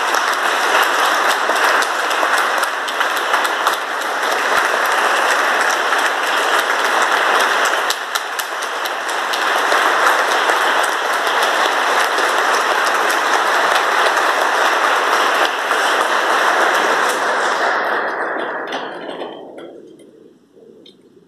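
Audience applauding: dense, steady clapping that dies away over a couple of seconds near the end.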